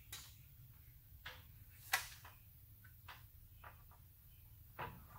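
A handful of light clicks and knocks, about six, the loudest about two seconds in, from fan shroud parts being handled and set against the radiator during a test fit, over a faint low hum.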